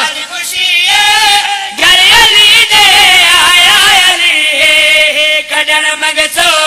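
Several men singing a Saraiki qasida together into microphones, in long wavering held notes; the singing grows louder about two seconds in.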